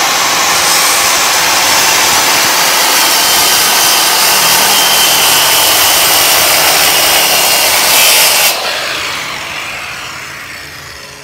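Corded circular saw running and cutting through a plywood sheet in one long, steady pass. About eight and a half seconds in, the cut ends, the trigger is released and the blade spins down, fading out.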